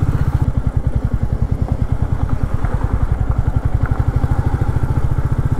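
Motorcycle engine running steadily at low road speed, its exhaust a fast, even beat, as the bike rides over a rough unpaved stretch of road.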